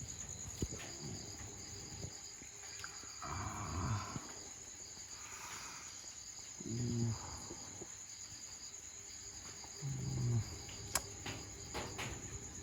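Crickets trilling in a steady high-pitched chorus. Three short low-pitched calls come about three seconds apart, and there is a sharp click near the end.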